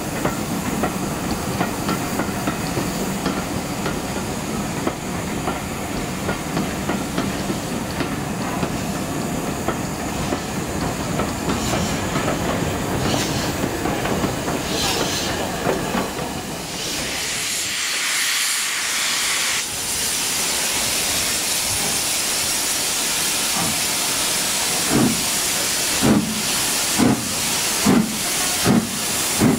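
A steam-hauled train rumbles along the rails past the platform. Then a loud hiss of steam from a steam locomotive rises about halfway through. Near the end, regular heavy exhaust beats come about every two-thirds of a second.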